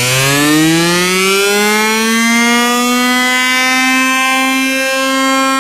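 Electronic music build-up: one buzzy, rich synth tone sliding up in pitch over a couple of seconds, then holding steady.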